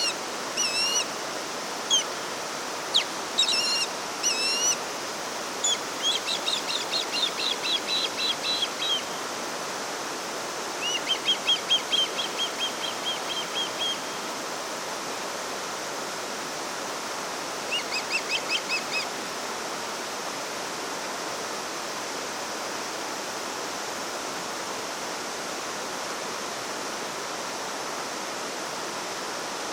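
Steady rush of running water, with a small bird chirping and giving several quick trills over the first two-thirds; after that only the water.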